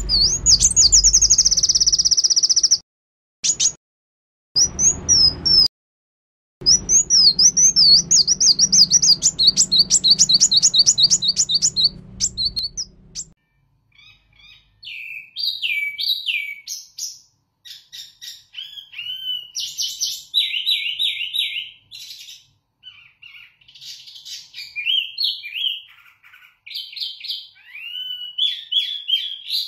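A caged songbird sings: for about the first thirteen seconds, rapid high trills and repeated notes over a low hum, cut off abruptly several times; then, from a wambi mini, a series of varied, clear whistled phrases, short bursts with brief pauses, rising and falling in pitch.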